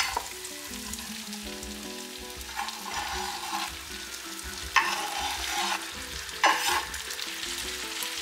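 Sliced tomato going into a hot pan of onions and peppers frying in oil, each addition setting off a sudden burst of sizzling over a steady low sizzle. The loudest bursts come about five and six and a half seconds in.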